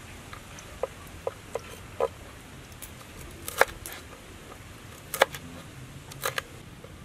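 Kitchen knife chopping small green chillies on a wooden cutting board: separate, irregularly spaced knocks of the blade on the board. Four lighter ones come in the first two seconds, then three louder chops about three and a half, five and six seconds in.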